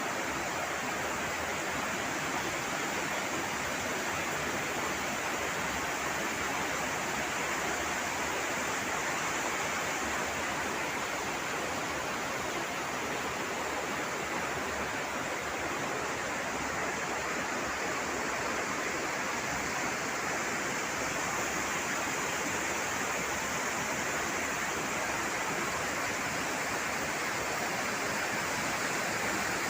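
Steady, even rush of running water, without a break.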